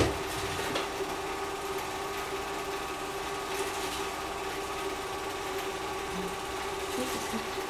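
Film projector running, a steady mechanical whirr with a constant hum. A sharp click at the very start.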